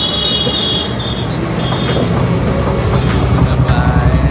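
Road traffic: motor vehicle engines running steadily, getting louder toward the end, with a short high-pitched tone in the first second.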